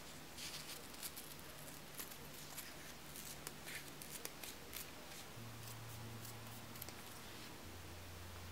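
Scissors snipping through satin ribbon: a run of small, sharp snips and clicks over the first seven seconds or so, then they stop.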